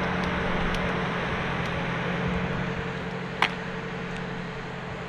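A steady low mechanical hum over a hiss, with one sharp click about three and a half seconds in.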